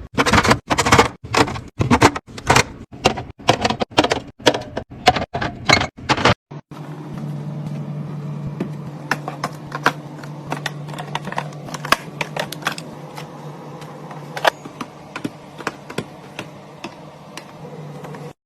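Hard containers and items being set down and knocked together, a quick run of sharp clacks about two a second that stops about six seconds in. After that there is a steady low hum with scattered light ticks.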